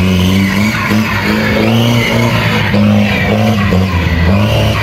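Off-road jeep engine revving hard, its pitch rising and falling, as the tyres spin and skid on loose dirt.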